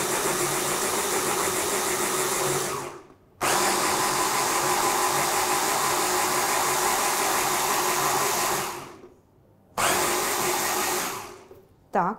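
Electric hand blender whirring steadily as it blends soaked almonds with water into almond milk. It cuts out briefly about three seconds in and again near nine seconds, then runs once more for a short burst before stopping near the end.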